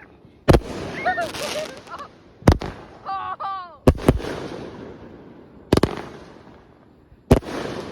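Consumer aerial fireworks going off: five sharp bangs spaced about one and a half to two seconds apart, each trailing off in a crackling hiss.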